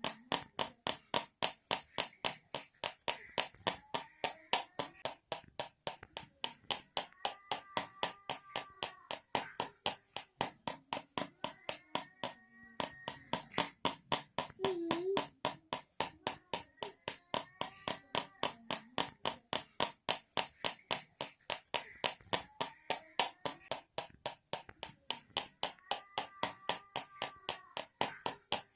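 Two tins used as a homemade baby rattle, rattling in a steady rhythm of sharp metallic clacks about four times a second, with one brief pause about halfway through.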